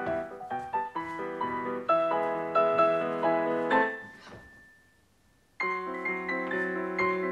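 Solo piano music for a ballet class. It breaks off about four seconds in, the last chord dying away into about a second of silence, then starts again abruptly: a freeze-dance stop.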